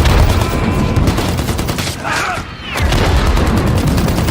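Heavy WWII film battle gunfire: many rifles and machine guns firing together in a dense, continuous fusillade, with a short lull about two seconds in.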